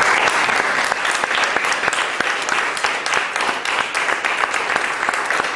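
Audience applause: many people clapping at a steady, even level.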